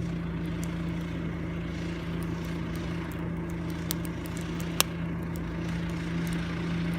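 A steady low mechanical hum, like a small engine or motor running, with a few faint scattered crackles from the campfire, one sharper snap about five seconds in.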